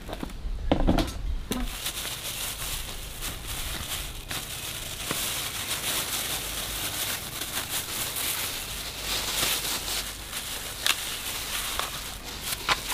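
A thump about a second in, then thin disposable plastic gloves crinkling and rustling as they are pulled onto the hands, with dry bamboo-shoot husk rustling as it is handled and peeled near the end.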